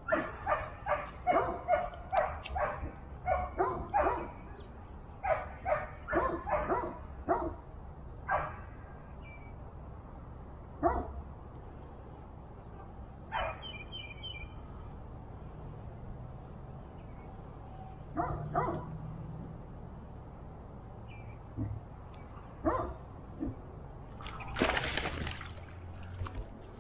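A dog barking: a quick run of short barks, then single barks every few seconds, over a steady faint hiss. A short rushing burst comes near the end.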